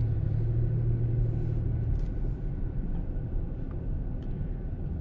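Car engine and road noise heard from inside the cabin while driving: a steady low rumble, with a stronger low hum that fades about a second and a half in.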